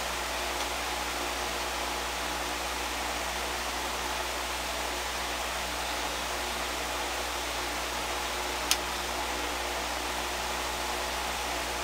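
Steady, even hiss with a low hum beneath it, and one short sharp click near the end.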